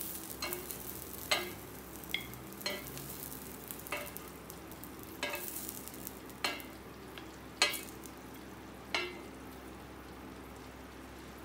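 Wooden tongs clicking and scraping against the hot top plate of a tabletop raclette grill and a plate as grilled sausage slices and vegetables are picked up, about one sharp click a second, stopping about nine seconds in. Under the clicks, a faint steady sizzle of food on the hot plate.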